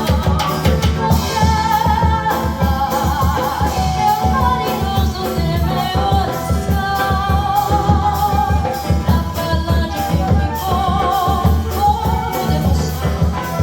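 Samba played by a small acoustic group: a sung melody line over flute, guitar and hand percussion keeping a steady, busy samba beat.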